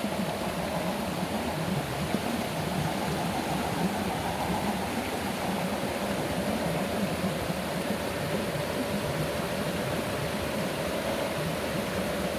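Electric motor and gearbox of an MN 128 RC rock crawler whining steadily, the pitch drifting slowly up and down with the throttle, over a steady rushing hiss.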